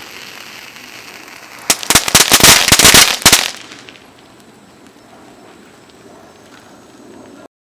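Firework fountain hissing as it sprays, then breaking into a loud, rapid run of sharp cracks and pops for about two seconds before dying down to faint noise. The sound cuts off abruptly near the end.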